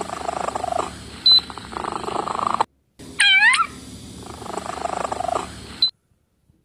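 A cat giving a series of calls, rough and noisy for the most part, with one clear meow about three seconds in that dips and then rises in pitch. The sound stops abruptly about a second before the end.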